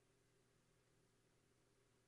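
Near silence: faint steady room tone with a low electrical hum.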